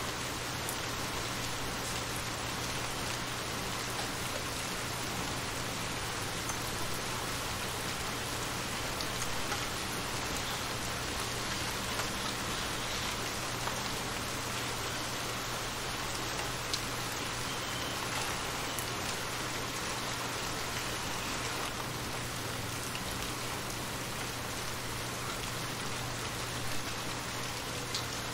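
Steady rain falling on shallow water: a constant hiss of many drops, with a few louder single drops now and then.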